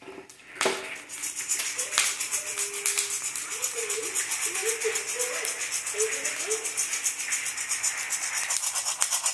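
Coffee beans rattling and sliding in a stainless steel saucepan as it is shaken back and forth over an electric hot plate to roast them, a steady rhythmic rattle that starts about a second in.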